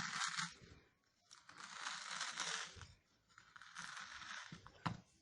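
A ladle scraping frozen ice cream out of a container in three long scrapes, then a sharp knock near the end.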